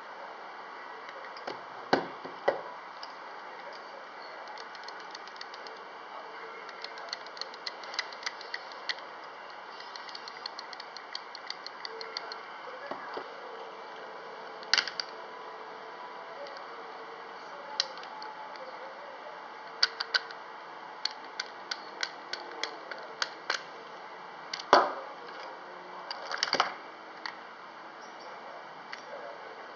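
Spinning fishing reels being handled: runs of quick light clicks from the reel mechanism, with several sharper knocks and taps as the reels and spools are picked up and set down.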